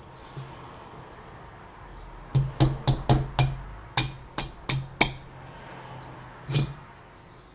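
A quick run of about ten sharp metallic knocks, then one more a second and a half later, as the two-stroke engine's cylinder is worked down over the compressed piston rings and seated on the crankcase.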